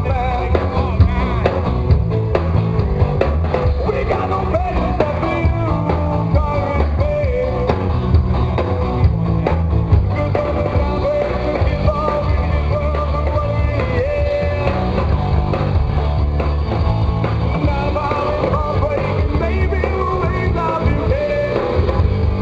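A rock band playing live, with drums, bass and electric guitar and a singing voice, loud and without a break.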